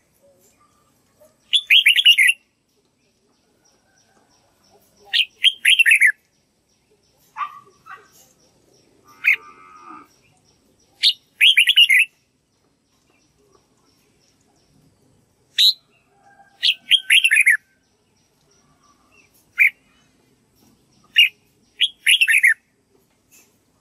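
Red-whiskered bulbul singing about ten short, loud, chirpy phrases with pauses of a second or more between them, many of the notes falling in pitch.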